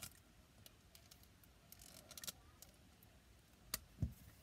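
Faint scattered clicks and taps of hands handling small plastic toy figures and the recording device, with a sharp click and then a dull thump about four seconds in, the loudest sound.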